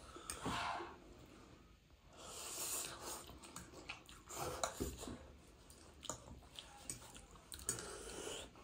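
Two people slurping and chewing spicy instant noodles close to the microphone, with a few hissing slurps, the longest lasting about a second.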